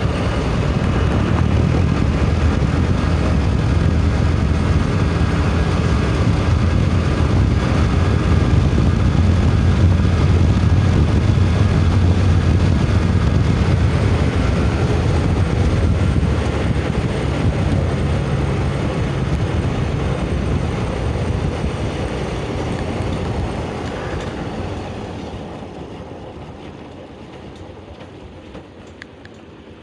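Bajaj Pulsar 220F's single-cylinder engine running on the move: a low steady engine hum under a broad rushing of wind and road noise, fading away over the last several seconds. This is heard on a test run after a CDI replacement.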